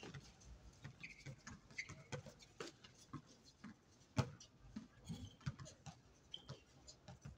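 Basketball play on an outdoor court: irregular ball bounces and brief high sneaker squeaks, with the loudest bounce about four seconds in.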